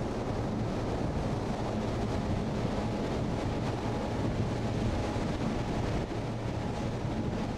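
Steady low drone of a car ferry's engines, with wind on the microphone and the rush of the sea, heard from the open deck.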